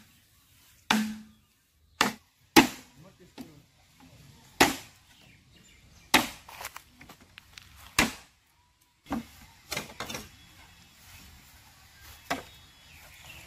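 A machete chopping green bamboo: about ten sharp, irregularly spaced blows.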